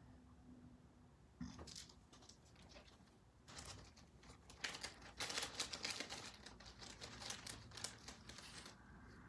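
Irregular crinkling and rustling, like plastic or packaging being handled, starting about a second and a half in and growing busier, then stopping shortly before the end.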